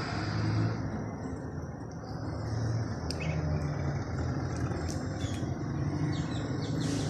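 Road traffic with a motor vehicle's engine running steadily, and faint short bird chirps in the second half.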